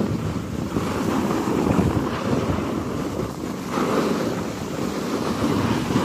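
Wind rushing over the camera microphone, mixed with the scrape of snowboards gliding over packed snow, rising and falling in loudness as they ride down the slope.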